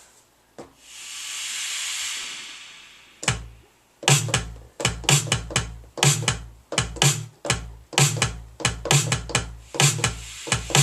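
Electronic drum beat played on a Maschine Mikro pad controller: a swelling and fading hiss, a single hit about three seconds in, then a steady repeating pattern of low kick thumps and sharp hits from about four seconds in.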